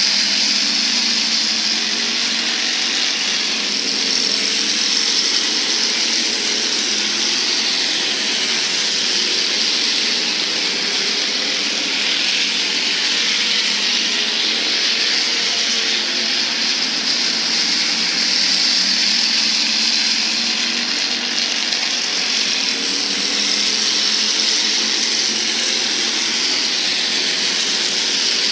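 Several IMCA Hobby Stock race cars' engines running at speed around a dirt oval, a steady, continuous drone of the field with no breaks.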